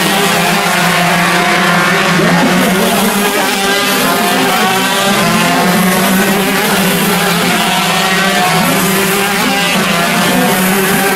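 Several Honda 125cc two-stroke shifter kart engines racing at once, their overlapping pitches rising and falling as they rev through the gears.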